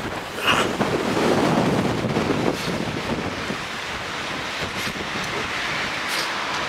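Wind buffeting the microphone over a steady rushing noise, stronger for the first couple of seconds and then even.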